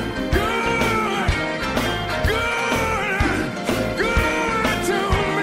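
Gospel music playing: a band with drums and bass under long held, wavering melody notes, with drum hits about twice a second.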